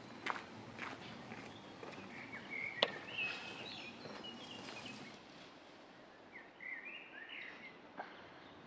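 Outdoor ambience: a steady background hiss with scattered short, high chirps and a few sharp clicks, the loudest click about three seconds in.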